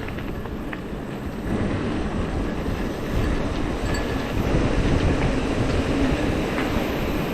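Wind buffeting the microphone over the rumble and rattle of riding over rough ground, growing louder about a second and a half in and again near the middle.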